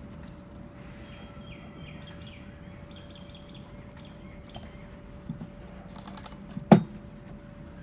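Small carburettor parts being wiped with a cloth and handled on a workbench: light rubbing and a few soft clicks, then one sharp tap near the end, the loudest sound. A faint steady hum runs underneath, with faint bird chirps in the first few seconds.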